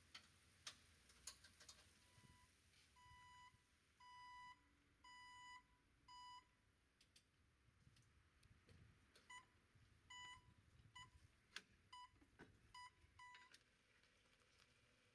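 Electronic beeper sounding a series of single-pitch beeps, about one a second at first, then a quicker run of shorter beeps, with faint clicks between.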